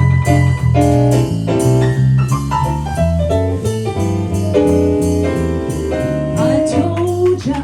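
Jazz combo playing an instrumental break: piano chords over a moving bass line, with percussion.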